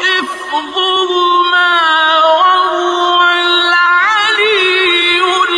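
A male Quran reciter chanting in the drawn-out, melodic mujawwad style, holding long notes that step between pitches, with a quick wavering ornament about four seconds in.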